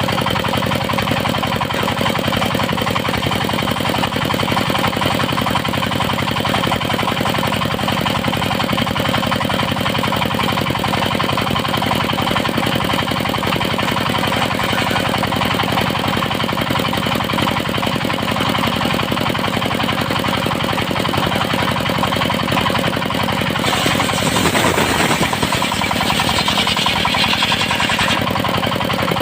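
Engine-driven circular sawmill running steadily with a fast, knocking pulse. For about four seconds near the end a louder hissing stretch comes in, as the blade saws through teak.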